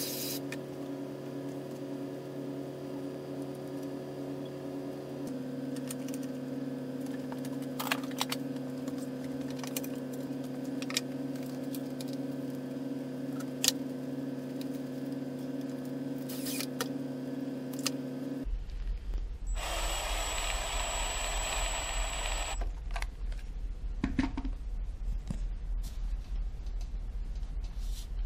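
Workshop handling sounds, scattered knocks and clicks, as a wooden fence block, a flexible dust hose and a metal plumbing strap are fitted to a drill press table, over a steady hum that drops off about two-thirds of the way in. Soon after, a cordless drill runs for about three seconds with a high whine, fastening the strap.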